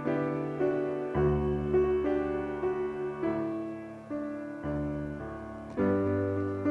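Slow background piano music: single notes and chords struck every second or so and left to ring, with a louder chord near the end.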